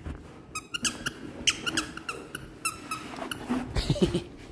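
Plush squeaky toy squeaking as a husky chews it: a string of short, high squeaks, several a second, through the first three seconds.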